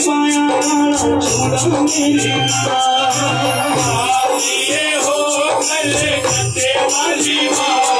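Live band playing an instrumental passage of a Himachali devotional bhajan: a sustained melody line over a steady beat with rattling shaker-like percussion.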